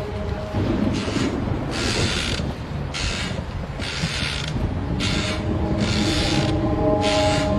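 Horror sound effect: a repeated mechanical grinding stroke, about one a second, over a low rumble. A low eerie drone of steady tones comes in about halfway through.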